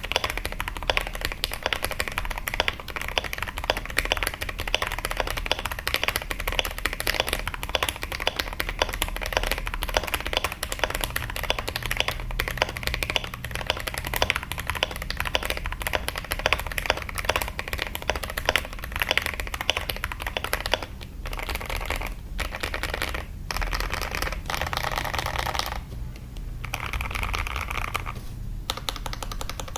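LMK81 mechanical keyboard typed on fast, a dense run of thocky keystrokes, with a few brief pauses in the last third.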